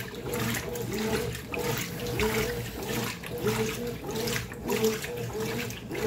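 Brastemp top-load washing machine agitating a load of clothes in soapy water: the agitator motor drive runs in a quick even rhythm, reversing a few times a second, while the water and laundry slosh in the tub.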